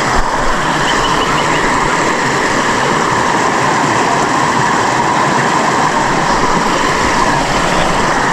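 Loud, steady rush of a waterfall, close by.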